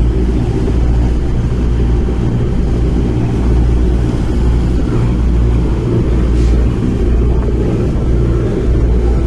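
A boat's engine running steadily under way, a loud, low drone.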